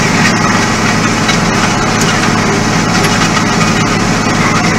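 Farm tractor's engine running steadily, towing a disc harrow through loose dirt.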